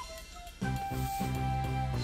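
Background music: held notes of a soft chord, coming in about half a second in after a brief lull.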